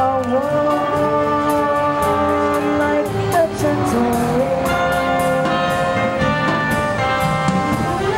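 Jazz big band playing live: brass and saxophones hold sustained chords over the rhythm section, with steady cymbal ticks, in a passage without vocals.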